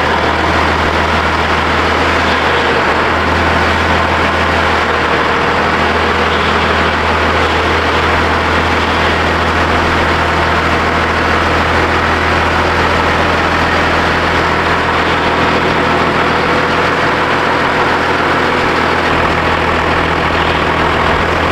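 Cummins diesel engine in a Ford Dentside truck running steadily at low revs, a deep even engine note that holds without revving up or down.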